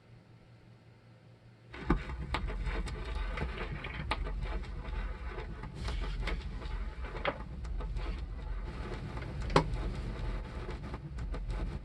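Turntable stylus set down on an uncleaned vinyl LP: a thump about two seconds in, then the crackle of surface noise and frequent sharp clicks and pops from the dirty record over a steady low rumble.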